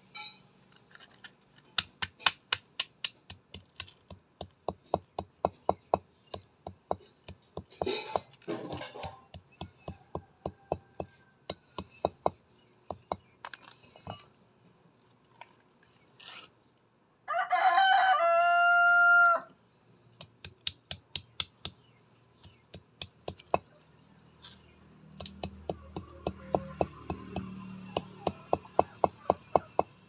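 Chickens pecking at hard dirt ground, runs of quick sharp taps. About seventeen seconds in, a rooster crows once, a call of about two seconds.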